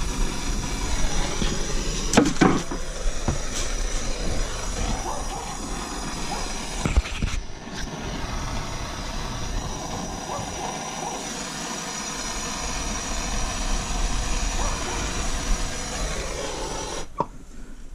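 Plumber's gas torch burning with a steady roar and hiss while heating a soldered copper fitting to sweat it off, with a few knocks. The flame cuts off suddenly near the end.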